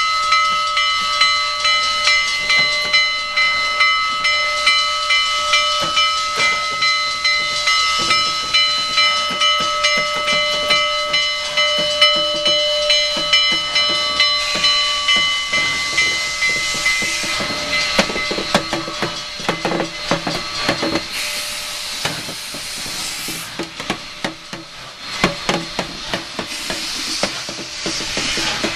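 Steam locomotive bell on Union Pacific 844, rung by working its striker, sounds in steady regular strokes over hissing steam. The ringing fades out about halfway through, leaving steam hiss and irregular puffs of escaping steam.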